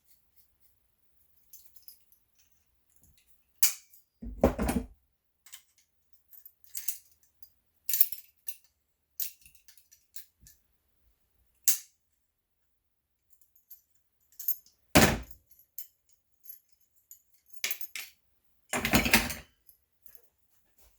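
Metal hardware of a leather tool belt being handled and worked on: scattered light clinks and rattles, like keys jangling, with three louder thumps, about four, fifteen and nineteen seconds in.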